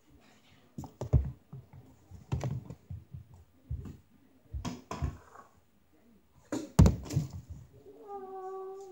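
Irregular knocks and thumps in a small room, spaced roughly a second apart, the loudest a double knock about seven seconds in. A voice holds a note near the end.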